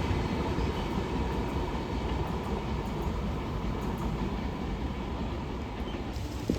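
Train running past on the rails, a steady rumble of wheels and coaches that eases slightly toward the end.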